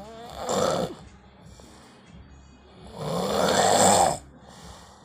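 A sleeping man snoring: a short snore about half a second in, then a longer, louder snore about three seconds in that lasts just over a second.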